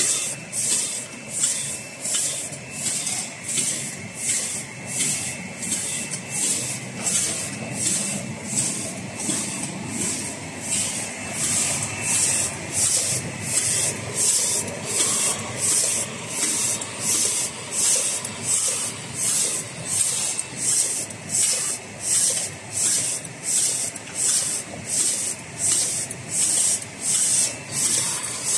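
Six-colour cup printing machine running in steady production, a regular hissing pulse about one and a half times a second over its mechanical running noise, with a faint steady high whine.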